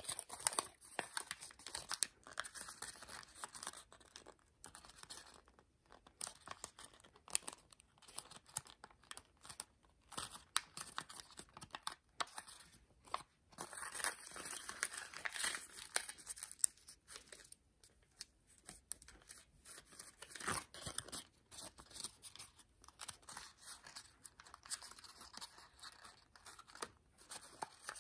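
Thin kami origami paper rustling and crinkling as it is folded and creased by hand, in quick irregular crackles with short pauses between.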